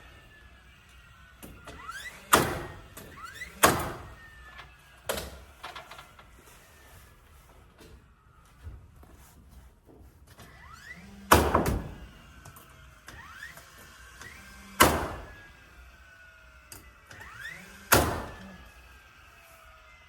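A nail gun firing nails into wooden barn siding: six sharp single shots at irregular intervals of one to several seconds, each with a short ringing tail.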